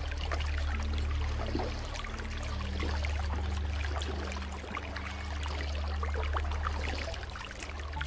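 Shallow river water babbling and trickling over stones, with a steady low rumble underneath.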